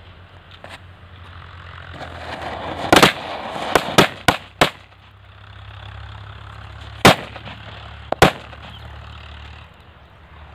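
Indian firecrackers packed into a hole in the ground going off: a hiss of burning powder builds, then a loud bang about three seconds in, four quicker cracks over the next two seconds, and two more loud bangs a few seconds later, with hissing between.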